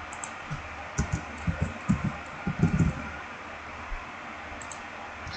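Computer keyboard keystrokes typing a short file name: a quick run of short, dull knocks with faint ticks on top, bunched between about one and three seconds in, over a steady faint hiss.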